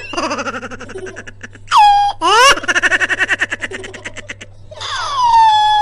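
High-pitched, sped-up-sounding laughter in a rapid run of pulses, broken by a falling squeal that settles on a held note about two seconds in and again near the end.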